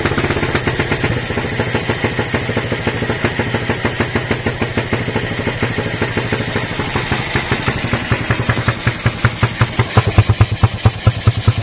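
Motorcycle engine running through a homemade exhaust made from an old biscuit tin, giving a rapid beat of exhaust pulses. About eight seconds in, the beat slows into louder, more separate pulses.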